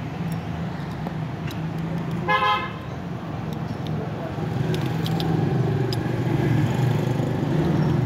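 A vehicle horn gives one short toot about two seconds in, over a steady low traffic or engine rumble.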